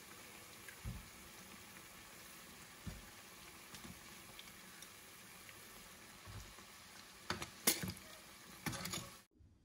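Pieces of pasti dough frying in hot oil in a skillet, sizzling steadily. A few sharp clicks and knocks of metal tongs against the pan come through, loudest near the end, and then the sound cuts off suddenly.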